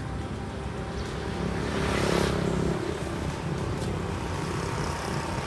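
Street traffic: a motor vehicle passes, its noise swelling and fading about two seconds in, over a steady low engine hum.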